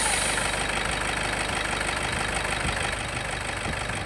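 Toyota Hilux Vigo engine idling steadily just after starting, its level easing a little as the revs settle. It runs after the starter motor was given new carbon brushes to cure its hard starting.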